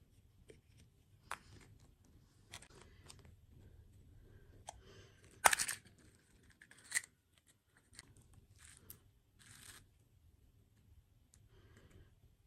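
Close-up eating and food-handling sounds from sweets and their packaging: scattered crinkles, clicks and crunches. The loudest is a sharp crackle about five and a half seconds in, with another about a second later.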